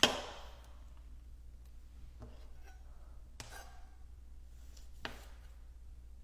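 Chef's knife cutting cherry tomatoes on a plastic cutting board: a sharp knock right at the start, then three soft taps of the blade on the board, spaced a second or more apart.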